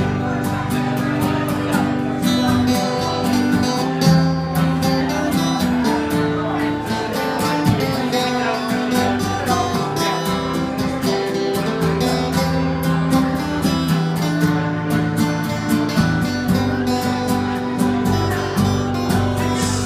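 Acoustic guitar strumming a steady rhythm in an instrumental break between verses of a live folk song, with held notes underneath.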